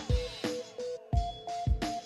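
Instrumental background music with a strong kick drum about twice a second and short repeated notes between the beats.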